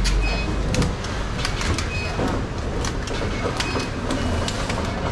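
Clear plastic clamshell fruit boxes clicking and crackling in quick irregular snaps as they are handled and their lids pressed shut, over a steady low background rumble.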